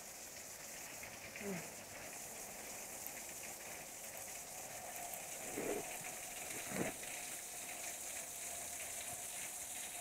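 Water still running and splashing beneath the ice of a partly frozen waterfall, a steady hiss. A few brief downward-sliding sounds come through, the loudest a little past halfway.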